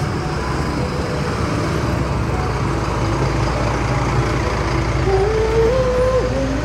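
Street traffic: motor vehicles running and passing in a steady low rumble, with a pitched tone rising about five seconds in.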